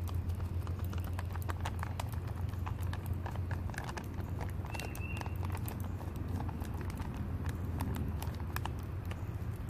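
Fork stirring biscuit mix and water inside a plastic pouch: a run of quick, irregular clicks and crinkles as the tines hit the bag. A steady low hum runs underneath.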